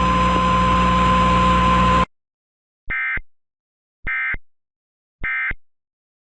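A steady hiss and hum that cuts off suddenly about two seconds in, followed by three identical short bursts of warbling digital data tone about a second apart: the EAS end-of-message (NNNN) code that closes the alert.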